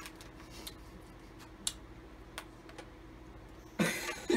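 A bag of Warheads Extreme sour candy rustling, with a few light, separate clicks as hands rummage in it and pick out a candy. A short vocal sound comes near the end.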